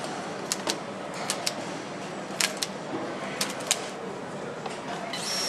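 Assembly-line ambience with a dozen or so sharp scattered clicks and taps from parts being handled and fitted on a motorcycle. Near the end, a power screwdriver starts up and runs with a steady high whine.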